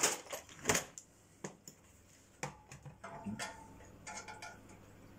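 Metal bleed key clicking and ticking on a central-heating radiator's bleed valve as it is turned to let air out, with a few sharp clicks in the first seconds and softer ticks after.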